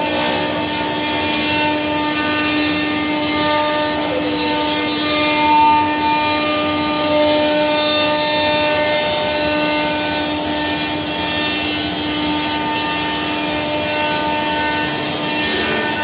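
Masterwood CNC machining centre routing birch wood: the spindle runs with a steady whine over the hiss of the cutter in the wood, its pitch sagging briefly a couple of times as the bit takes load.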